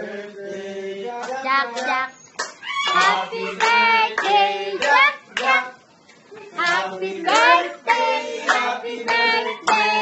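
A small group of voices singing a birthday song together, with hands clapping along.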